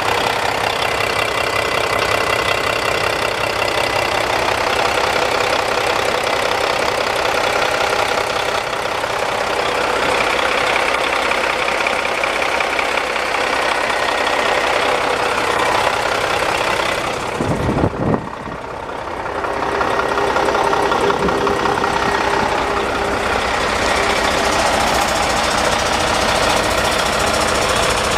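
Diesel engine of a 2008 Mack Pinnacle CXU613 truck running steadily with a clattering note, with a short low thump and a brief dip in level about two-thirds of the way through.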